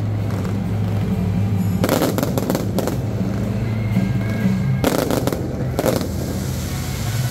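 Fireworks crackling in two dense bursts, about two seconds in and again around five seconds in, over steady background music.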